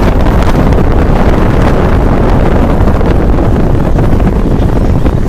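Wind buffeting the phone's microphone through an open car window while driving, with road noise underneath: a loud, steady rush with a heavy low rumble.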